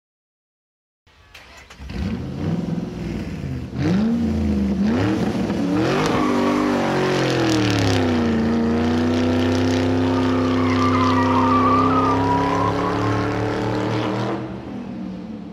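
Car engine revving, its pitch rising and falling twice as it speeds up, then running at a steady pitch before fading near the end.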